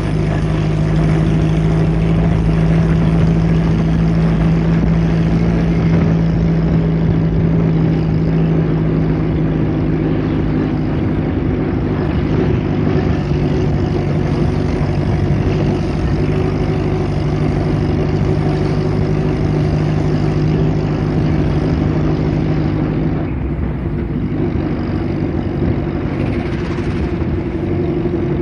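1929 Bentley vintage car driving, its engine running steadily with the note shifting a few times and a brief drop about 23 seconds in.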